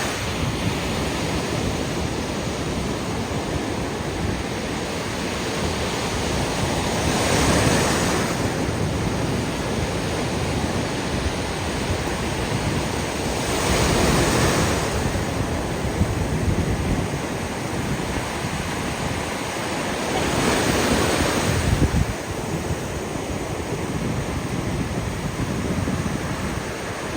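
Ocean surf breaking on a beach, a steady wash with waves swelling louder about every seven seconds, mixed with wind rumbling on the microphone.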